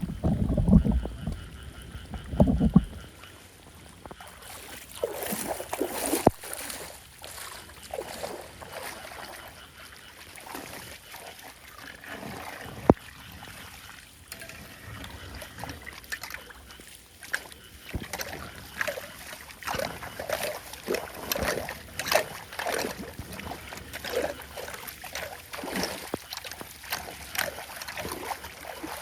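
Floodwater splashing and sloshing in irregular bursts, as when debris is worked loose from a blocked drain. A low rumble fills the first three seconds, and a single sharp knock stands out about thirteen seconds in.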